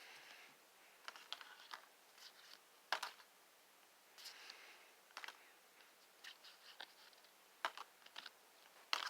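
Faint, scattered clicks and soft rustles of Pokémon trading cards being handled and flipped through one at a time; the sharpest click comes about three seconds in.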